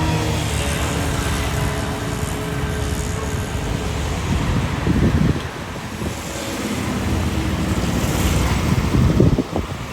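Jet airliner engine noise, a steady hiss-like rush, with wind buffeting the microphone in strong gusts about halfway through and near the end.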